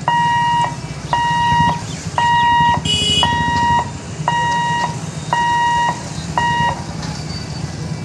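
Warning buzzer of a railway level crossing's electric boom barrier beeping at one steady pitch, about once a second, seven times, as the barriers are raised, then stopping. Idling motorcycle engines hum underneath, with a brief sharp high sound about three seconds in.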